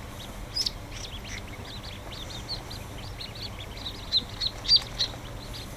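Many newly hatched ducklings peeping: a steady run of short, high chirps, with a few louder ones about four to five seconds in.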